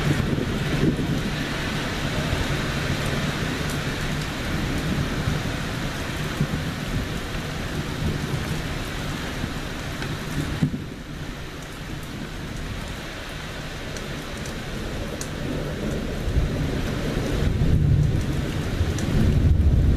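Thunderstorm: rain falls steadily while thunder rolls, its low rumble strong at the start, easing off in the middle, then building again over the last few seconds.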